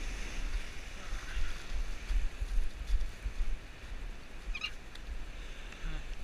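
Wind buffeting the microphone in uneven gusts, over the steady hiss of surf washing up the beach.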